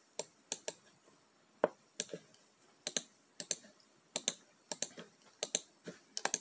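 Computer keyboard keys clicking in irregular, sparse typing, often two strokes close together, a few a second.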